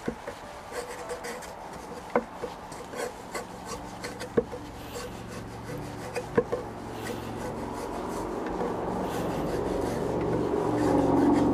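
Kitchen knife slicing the skin off a slab of raw pork belly on a wooden cutting board: blade rasping through the fat with scattered sharp taps and scrapes against the board. A low steady rumble swells over the last few seconds.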